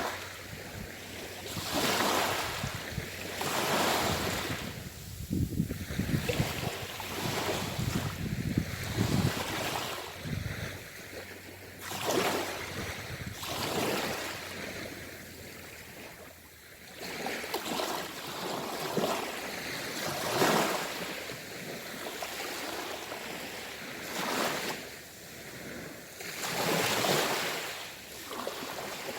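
Sea waves washing in, the hiss swelling and fading every two to three seconds, with a stretch of low rumble about five to ten seconds in.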